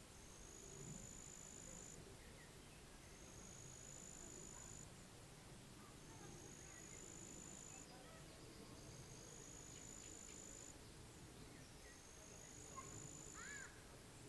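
Faint pond-side ambience: an insect trills in high, even phrases of about two seconds, repeated with short pauses, over a low background hiss, with a few brief bird chirps near the end.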